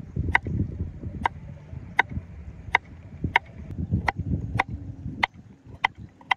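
Kitchen knife chopping on a cutting board in a steady rhythm, about three cuts every two seconds.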